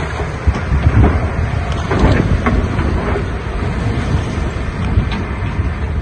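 Diesel engine of heavy earthmoving machinery running, with wind rumbling on the microphone. A few knocks come about two seconds in.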